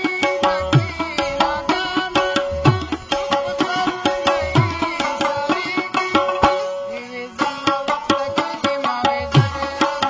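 Live instrumental music of tabla and harmonium. The tabla plays fast, dense strokes, with a bass-drum stroke that slides down in pitch about every two seconds, dropping out for a moment around two-thirds of the way through. The harmonium repeats a held note between short melodic runs.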